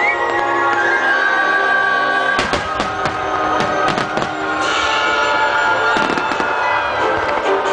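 Aerial fireworks shells bursting in a quick run of sharp bangs from a couple of seconds in, over loud music with long, held melody notes.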